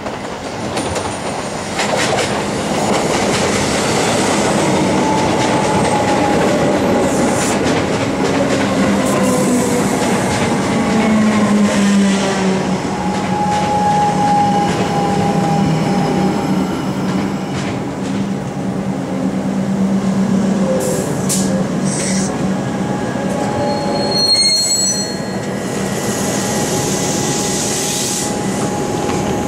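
Electric multiple-unit suburban train pulling in and braking to a stop at the platform, its traction motors whining in tones that fall in pitch as it slows. A brief high brake squeal comes near the end, then a steady hum as it stands.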